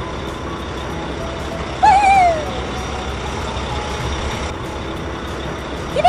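Steady low engine rumble of an animated vehicle sound effect. Two short pitched calls rise and fall over it, one about two seconds in and one at the very end.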